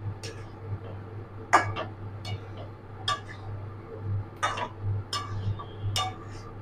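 Metal spatula scraping and clinking against a metal kadai while stirring chicken coated in a thick yogurt paste: about nine separate scrapes and knocks, over a steady low hum.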